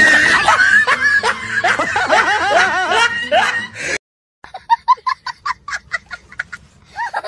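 Laughter and giggling, cut off abruptly about four seconds in; after a short silence comes a quick run of short laugh-like sounds, fainter.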